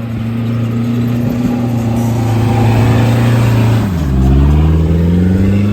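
Motor vehicle engine running loud at steady revs. About four seconds in its pitch drops sharply and then climbs again, like a gear change while accelerating.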